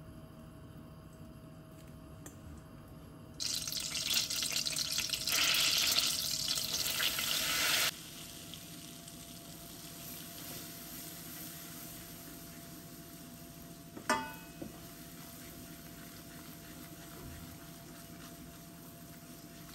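Butter and olive oil frying in a stainless steel pot: a soft sizzle, then a loud hissing sizzle for about four seconds, then a steadier, quieter sizzle as flour cooks into a roux under a wooden spoon. Near the middle, the spoon gives one sharp knock against the pot.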